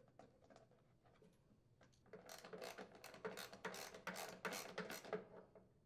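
Socket ratchet clicking rapidly as it tightens the bolts that hold a snowblower's belt cover, a run of quick clicks beginning about two seconds in and lasting about three seconds.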